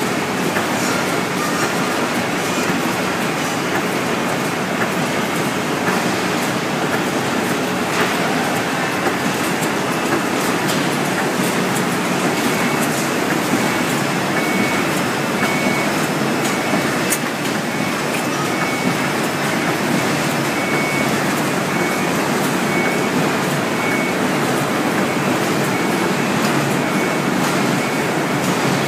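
Cuir corrugated-board printing machine running steadily, its sheet feeder and print units making a dense, even mechanical noise. From about halfway through, a faint high tone pulses about once a second.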